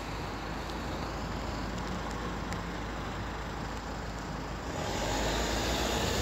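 Road traffic noise at a junction: a steady rumble of vehicles that grows louder about five seconds in.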